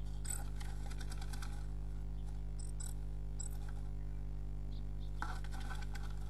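A tit inside a wooden nest box, scratching and rustling as it works its nesting material, in short scratchy bursts at the start, around the middle and near the end. A steady low electrical hum from the nest-box camera's recording runs underneath.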